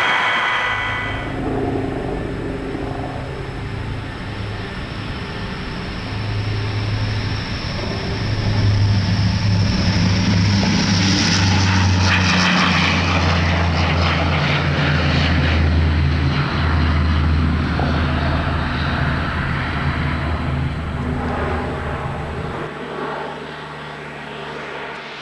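The four Rolls-Royce Dart turboprop engines of a Vickers Viscount taking off and climbing away: a steady low drone under a high turbine whine that builds and peaks about halfway through. The drone cuts off suddenly near the end.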